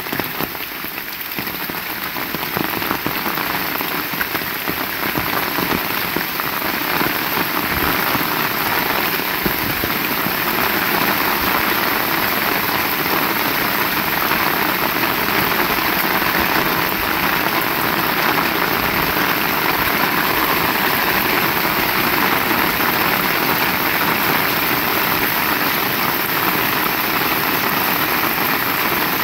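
Heavy rain falling steadily on surfaces, a dense even hiss of many drops, getting a little louder over the first several seconds.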